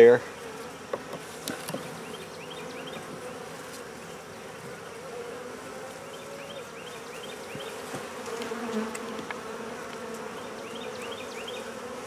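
Honey bees buzzing over the open frames of a hive, a steady hum. A few faint clicks and short high chirps sound over it.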